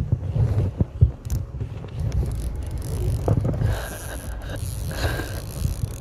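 Spinning reel cranked in short spells, a whirring with a steady high tone, over wind rumbling on the microphone and scraping handling noise.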